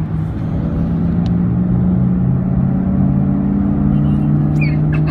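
Steady engine drone and road noise heard inside the cabin of a moving car.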